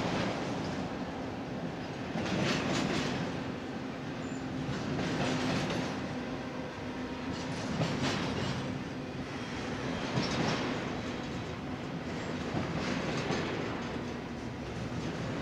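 Freight train cars rolling past on steel rails, a steady rumble with a surge of wheel clatter every two to three seconds as the trucks pass over the rail joints.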